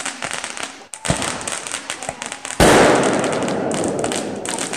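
Fireworks going off: rapid crackling pops, then about two and a half seconds in a sudden loud rush of noise that slowly fades.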